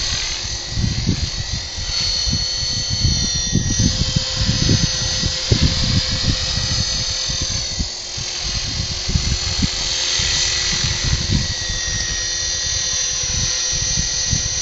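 Radio-controlled helicopter running in flight, a steady high-pitched motor and rotor whine that lifts in pitch about two-thirds of the way through. Strong wind buffets the microphone throughout.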